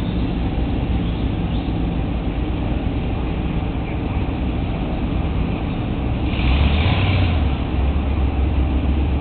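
Car engine running in slow traffic, a steady low rumble heard from inside the cabin. About six and a half seconds in, a brief rush of noise rises for about a second and a deeper rumble comes in and stays.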